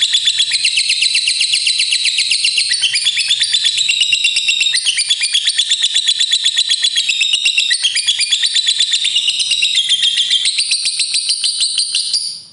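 Lovebird giving the long 'ngekek' chatter: a fast, unbroken run of shrill repeated notes, about nine a second, that cuts off suddenly near the end.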